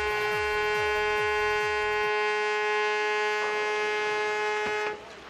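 A ship's horn sounding one long, steady blast that cuts off about five seconds in: the signal given just before a ship is side-launched.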